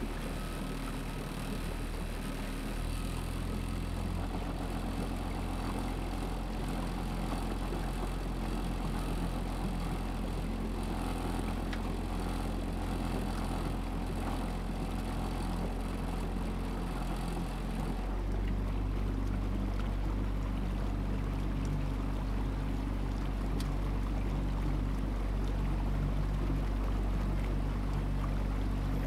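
A small boat's engine running steadily under way. Its low note shifts about three seconds in and again about two-thirds of the way through, when it gets a little louder.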